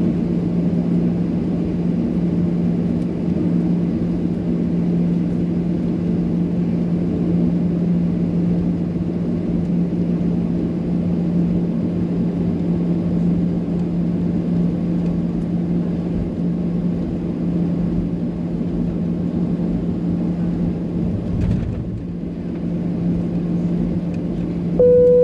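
Steady drone of an airliner's engines heard from inside the cabin while it taxis before take-off, with a constant low hum. Right at the end a single cabin chime tone sounds.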